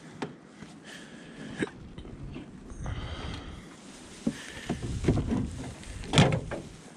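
Scattered knocks and thumps over a low rumble, with a louder thump about six seconds in.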